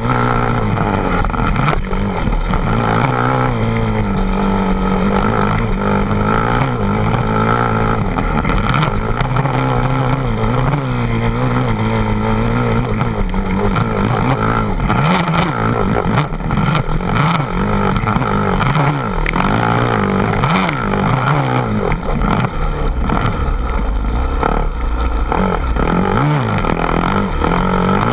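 A car engine running loudly and continuously, its pitch rising and falling as it is revved up and eased off.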